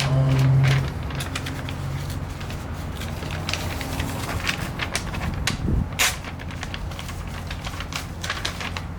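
Paper and cardboard being handled, with irregular rustles and clicks and one sharper click about six seconds in, over a steady low rumble of wind on the microphone.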